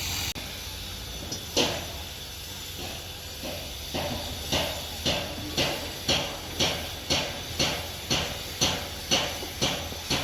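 Regular knocking, about two sharp knocks a second, over a steady low hum; the first knock comes about a second and a half in, and the knocks settle into an even beat from about four seconds in.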